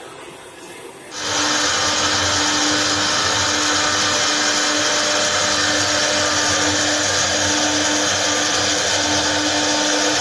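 CNC router spindle running and cutting wood, a steady high-pitched machining noise with a held tone that starts suddenly about a second in.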